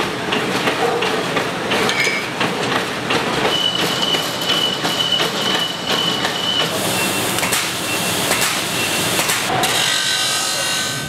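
Metalworking machinery in sequence: a ring-rolling machine clanking, then a band saw cutting steel rings with a steady high whine, then the crackle and hum of a butt welder.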